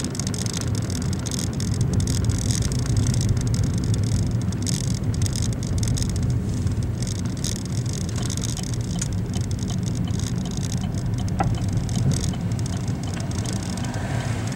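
A car's engine and tyre noise heard from inside the cabin while driving: a steady low rumble.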